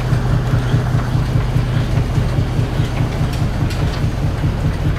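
Belt-driven cotton gin running: flat belts turning spoked pulleys on a line shaft, with a loud, steady, rhythmic low drone of the driving machinery.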